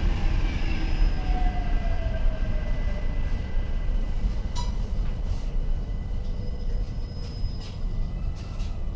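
London Overground Class 378 electric train running, heard from inside the carriage: a steady low rumble of wheels on the track with a steady high tone. A whine falls in pitch in the first couple of seconds, and there is a single sharp click about halfway.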